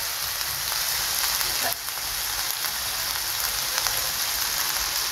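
Sliced pork skin sizzling steadily as it stir-fries with herbs in a hot wok, a dense high hiss with no stirring.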